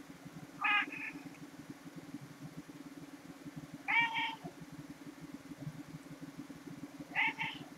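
Domestic cat meowing three times, each a short call about three seconds apart, while being scratched on the head. Underneath, a steady low purr runs throughout.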